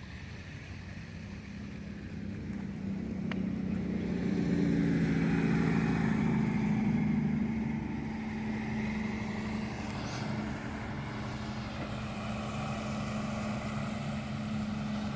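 Truck engine running steadily as the truck drives across a low river crossing, growing louder over the first few seconds and then holding at a steady hum.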